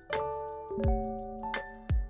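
Background music: a melody of held, ringing notes over a steady deep drum beat.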